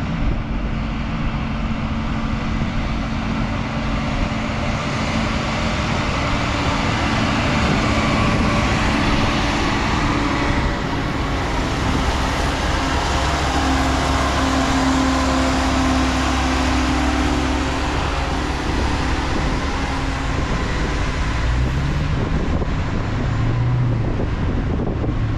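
Harsco rail maintenance-of-way machines running past at full throttle on the track: a steady diesel engine drone with wheel-on-rail rattle, loudest around the middle as a machine passes close by.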